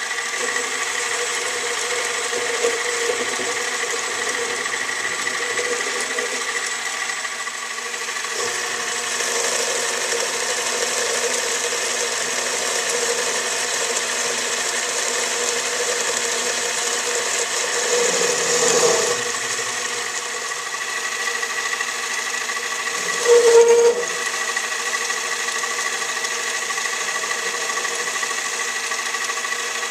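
Small metalworking machine tool running steadily, a motor hum with a steady whine. There are two brief louder moments, about 18 and 23 seconds in.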